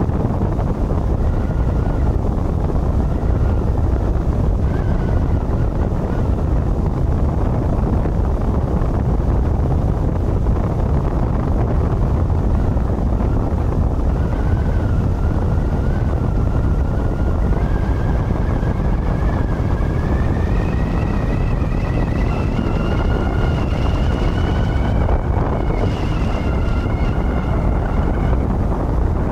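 Speedboat running at speed, its engine masked by heavy wind buffeting on the microphone. A high whine rises gradually in pitch over the second half.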